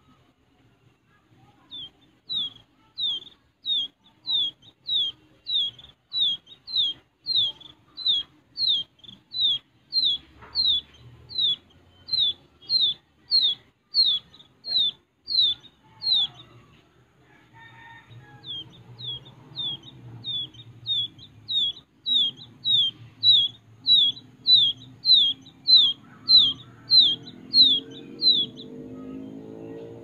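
Wild quail chick peeping: a steady series of short, high, downward-sliding peeps, nearly two a second. The peeps pause for about two seconds mid-way, then resume.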